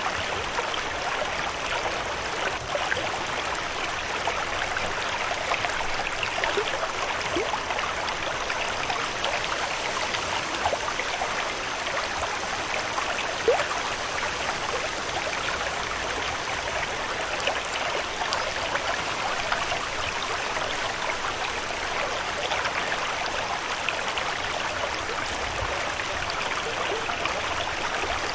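Running water babbling and trickling steadily, like a small stream, as a continuous nature ambience.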